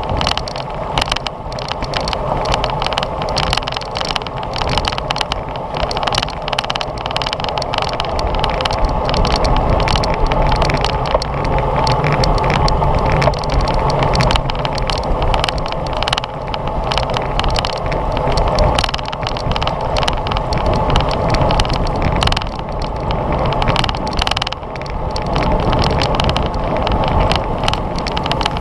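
Wind and road noise on a GoPro riding a racing bicycle at speed: steady rumbling wind on the microphone, with tyre hum and constant small rattles and knocks from the bike.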